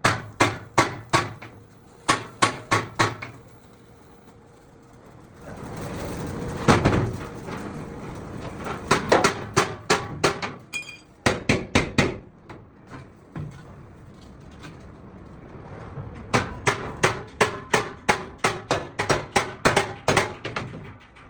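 Hammer blows on sheet metal, struck in quick runs of about three or four strikes a second, with pauses between the runs. In the middle there is a few seconds of steady noise.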